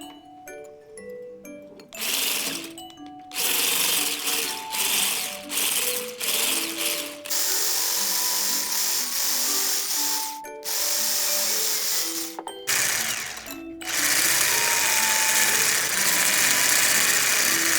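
Electric hand mixer running at high speed, whipping soy whipping cream, switched off and on several times before running continuously for the last few seconds.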